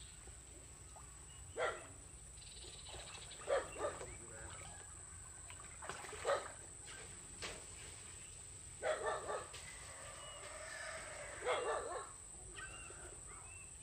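A dog barking: several short barks at irregular intervals, some coming in quick pairs.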